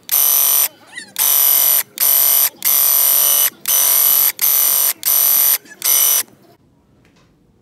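Graco Ultra Max handheld airless paint sprayer's pump buzzing loudly in eight short bursts over about six seconds as the trigger is pulled and released while spraying paint.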